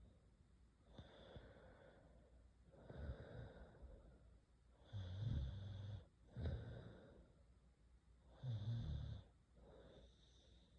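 A sleeping girl snoring in a slow rhythm: soft breaths alternate with about three louder, buzzing snores in the second half.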